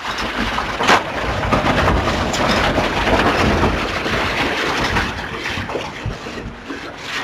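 Heavy wind and rushing sea noise aboard a sailing yacht in rough weather, with a sharp crash about a second in, like a wave striking the boat.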